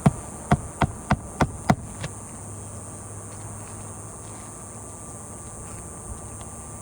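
Hammer hatchet driving a roofing nail through an asphalt shingle's nailing strip: about seven quick strikes in the first two seconds. After that only a steady background drone of insects.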